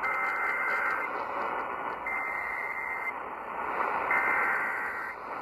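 Emergency Alert System SAME header data bursts received on AM radio: three buzzy, warbling digital-tone bursts, each about a second long and a second apart, over steady radio static.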